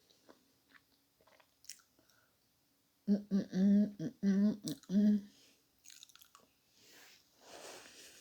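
A woman eating, with soft chewing and mouth clicks, breaks into about five short, loud, closed-mouth "mmm" hums a little after three seconds in, then goes back to chewing.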